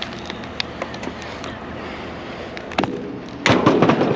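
A steady rushing noise with scattered light clicks, then a loud rattling clatter lasting about half a second near the end.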